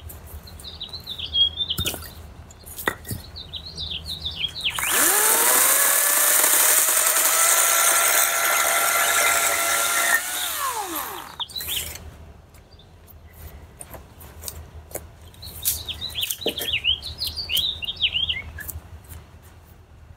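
EGO 56-volt cordless chainsaw whining up to speed about five seconds in, running hard through a log for about five seconds, then winding down with a falling whine. Small birds chirp before and after, with a few sharp clicks.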